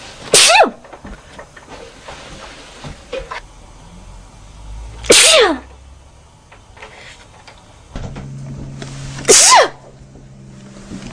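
A woman sneezing three times, about four to five seconds apart; each sneeze is a loud, sharp burst with a voiced cry that falls in pitch.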